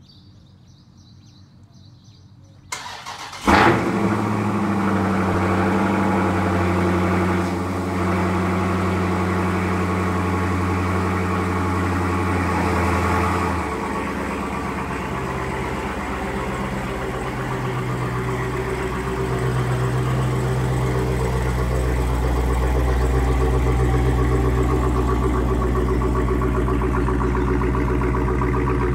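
Dodge Charger Scat Pack's 392 Hemi V8, muffler-deleted with Dynomax Mini Race Bullet resonators, cold-starting: a short crank about three seconds in and a loud flare as it catches, then a fast, steady cold idle that drops to a lower idle about ten seconds later. The deep exhaust note grows stronger in the second half.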